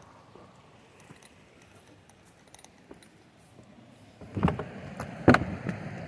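Faint scattered ticks, then two loud short knocks about a second apart in the second half, each with a brief rattle after it.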